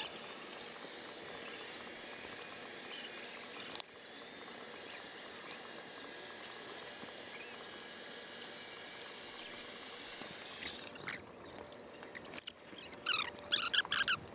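Steady air hiss from a blower inflating a large transparent bubble ball, running until about ten seconds in, then a few sharp high squeaks and knocks near the end.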